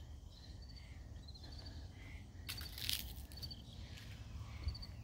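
Quiet outdoor ambience: faint insects chirping in short high trills that repeat throughout, over a low rumble, with a brief noisy rustle about two and a half seconds in.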